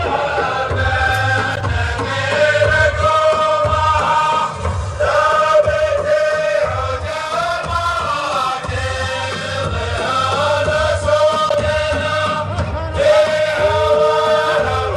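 Chanted male vocal music: layered, choir-like men's voices singing a slow held melody without speech.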